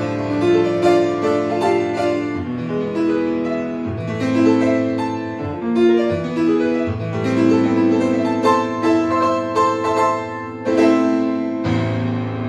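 Grand piano played with both hands in a steady stream of notes; near the end a low chord is struck and left ringing.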